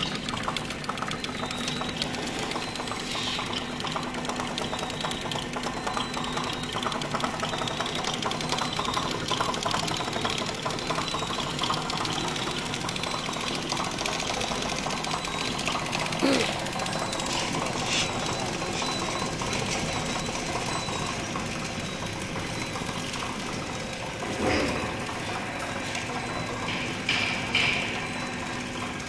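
Automatic four-side-sealing toothpick packing machine running: a rapid, even mechanical clatter from its feed and sealing mechanism, with a few louder knocks now and then.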